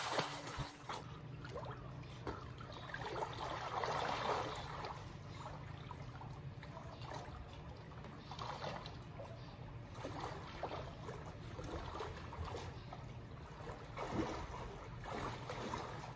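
Pool water splashing and sloshing as a person swims strokes through it, in irregular swishes.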